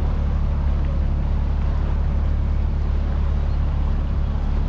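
Canal tour boat's engine running steadily under way, a low even drone.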